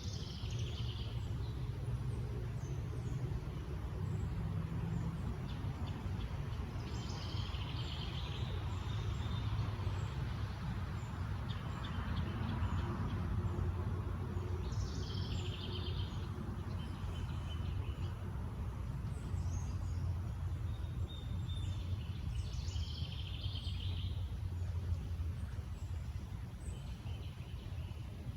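Songbirds singing short phrases every few seconds over a steady low rumble of distant traffic. The traffic noise swells and fades near the middle.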